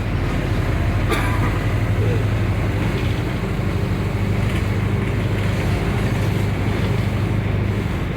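Bus engine and road noise while driving: a steady low drone with no change in pace, and a single short click about a second in.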